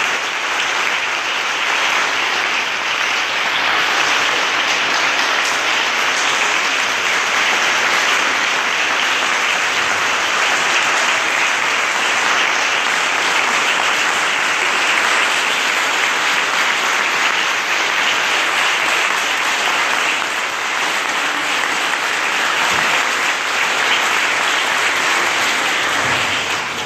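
A large audience applauding, a dense and steady clapping that holds at the same level throughout and stops right at the end.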